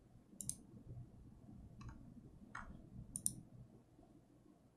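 Four faint, short computer mouse clicks spread over a few seconds, over a low room hum.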